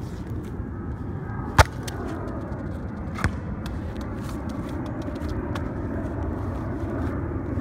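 Steady low outdoor rumble, with a sharp knock about a second and a half in and a fainter one about three seconds in.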